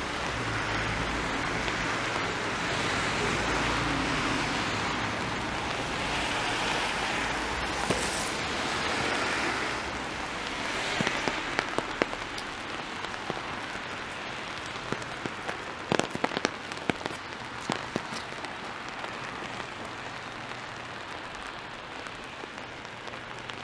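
Steady rain falling on a wet city street. In the first half, a hiss swells and fades several times, as from car tyres on the wet road. After that the rain settles to a lower patter, broken by a scattering of sharp taps and drips.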